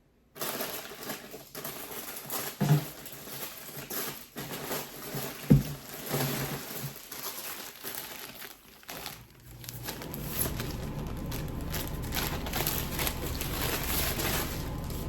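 Plastic packaging crinkling and rustling as clothes are handled and unwrapped, with irregular crackles and a couple of soft knocks, the louder one about five seconds in. From about ten seconds in the rustling becomes steadier and denser.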